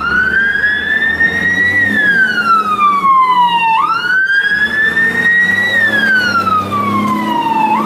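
Fire-engine siren wailing: two slow wails, each climbing for about two seconds and then sliding down for about two seconds, with a low rumble underneath.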